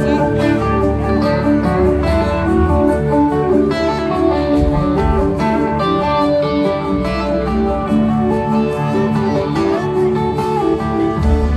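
Live rock band playing a slow instrumental jam, electric guitar leading over drums, bass and keyboards.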